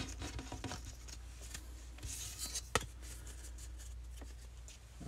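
Faint rustling and clicking of baseball trading cards being handled and stacked, with one sharp click a little under three seconds in.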